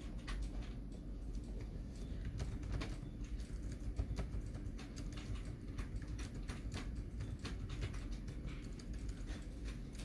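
Scattered light clicks and taps, several a second at times, over a steady low hum.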